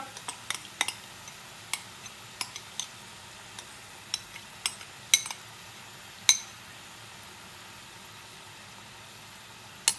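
A metal spoon clinking and scraping against a bowl as thick yogurt is scraped out of it into a pan, giving scattered sharp clicks, the loudest about five, six and ten seconds in. Underneath is a faint, steady sizzle of chicken frying in oil.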